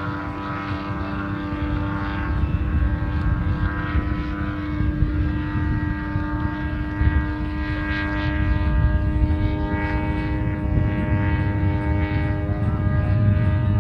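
Engine and propeller of a 1:2.5-scale RC Jodel Robin towplane running steadily at constant pitch under load as it tows a scale glider aloft.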